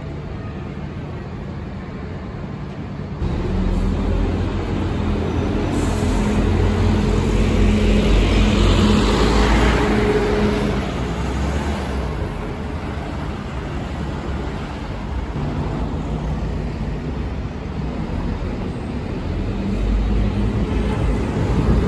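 Scania OmniCity double-decker bus's diesel engine pulling away from the stop and driving past close by, loudest about 8 to 10 seconds in. Near the end a bus engine grows louder again as a bus approaches.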